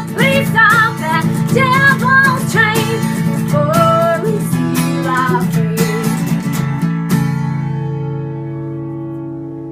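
A woman singing with vibrato over strummed acoustic guitar. The voice stops about five seconds in; a final strummed chord about seven seconds in is left to ring out and fade, ending the song.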